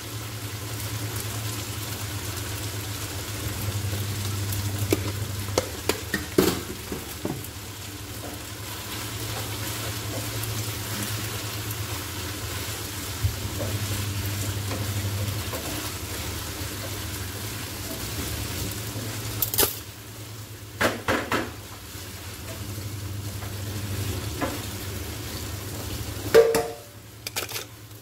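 Food sizzling in a frying pan on a gas burner while a wooden spatula stirs it, scraping and knocking against the pan. The knocks come now and then, with a short cluster about two-thirds of the way through and a louder knock near the end.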